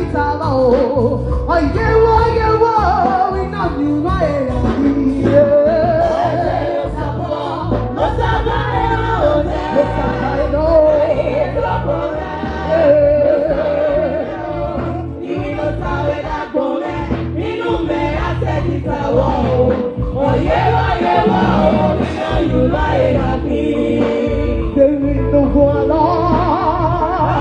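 Gospel praise song: several voices singing together over steady instrumental backing with a strong bass.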